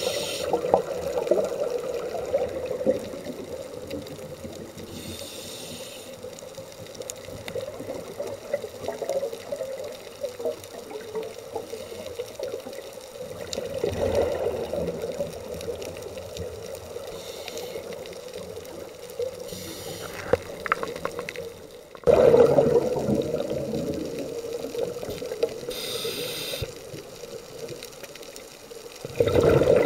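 Underwater sound of a scuba diver's breathing through the regulator. Each breath comes as a short hiss on the inhale, then a louder burst of bubbling on the exhale, a few times over, with a constant watery wash between breaths.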